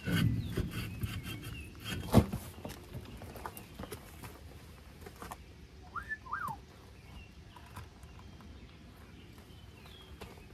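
A trailer wheel with a blown-out tire being pulled off its hub studs: a scraping rumble for about two seconds, then a single sharp thump as it comes free. Later a short chirp, a bird, in the quiet.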